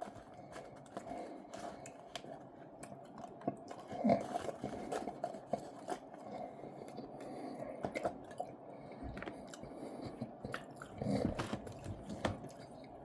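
A person chewing and eating food, with many small scattered mouth clicks.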